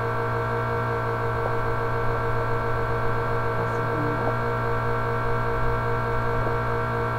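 Electric fan running: a loud, steady hum made of a stack of even tones.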